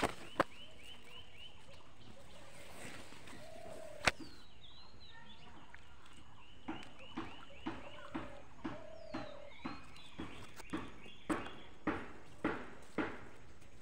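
Short animal calls repeating about twice a second, growing louder over the last few seconds, with a sharp click near the start and another about four seconds in.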